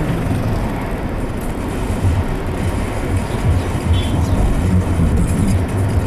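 Car driving slowly, with steady low engine hum and road noise.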